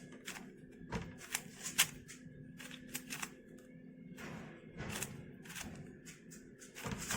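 A YJ MGC 4x4 speedcube being turned by hand: quick, irregular plastic clicks and clacks as its layers are twisted.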